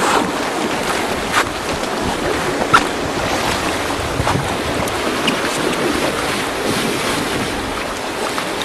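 Water rushing and splashing past the hulls of a Gemini catamaran under sail, with wind buffeting the microphone. A few brief, sharper splashes come in the first three seconds.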